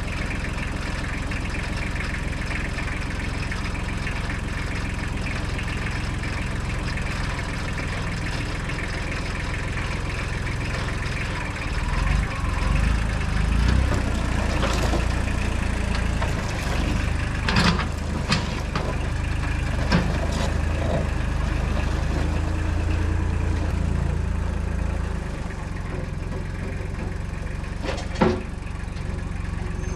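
Tractor engine running steadily at idle, working harder and louder from about twelve seconds in, with a few sharp metallic clanks.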